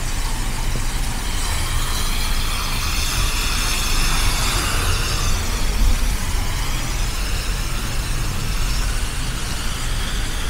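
Street traffic: a steady low rumble of engines, with a vehicle passing whose tyre hiss swells and fades between about two and six seconds in.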